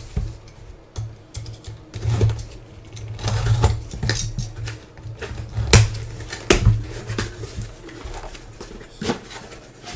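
Trading card packaging being opened and handled on a table: rustling with a run of sharp clicks and knocks, the loudest about six and a half and nine seconds in.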